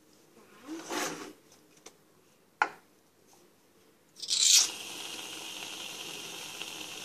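Aerosol foam can spraying: a loud sputter at the nozzle about four seconds in, settling into a steady hiss. Before it come a brief rustle of handling and a sharp click.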